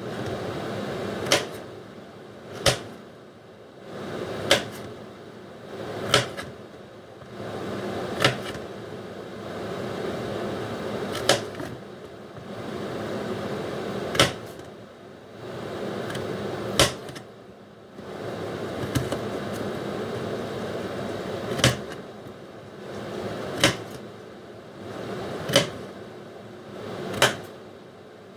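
A knife cutting a carrot, slice by slice: a sharp knock of the blade on the board about every two seconds, with a soft scraping rustle between the cuts.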